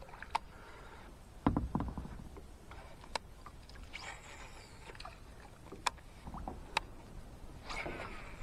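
Kayak being paddled: the paddle blades swishing and dipping through the water, with a heavier thump about a second and a half in and several sharp ticks along the way.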